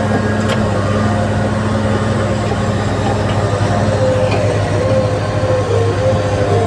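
Heavy diesel vehicle engine running steadily, a deep even hum, with a higher whine that wavers up and down in pitch over the last few seconds.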